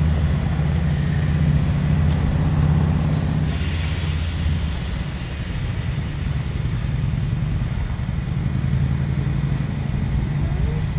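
Southern Pacific 2472, a 1921 Baldwin 4-6-2 Pacific steam locomotive, moving slowly with a steady low rumble. About three and a half seconds in, a hiss of steam starts suddenly and fades over a second or so.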